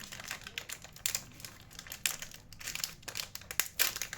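Packaged ice cream's wrapper crinkling as it is handled and opened, with dense, irregular crackles throughout.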